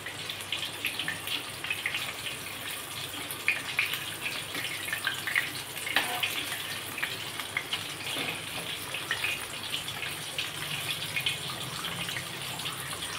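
Batter-coated chicken leg pieces deep-frying in a steel pot of hot oil on a medium flame: a steady bubbling sizzle with scattered crackles.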